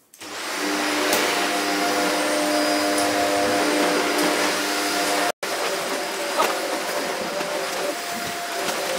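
Shark upright vacuum cleaner switched on, its motor coming up to speed within about a second and then running with a steady whine. The sound drops out for a moment about five seconds in, then carries on.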